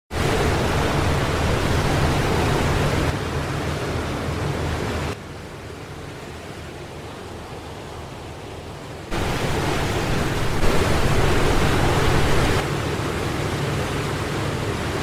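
Steady hiss and rumble of an old film soundtrack with a low hum underneath. The level steps down and back up a few times, dropping sharply about five seconds in and rising again about nine seconds in.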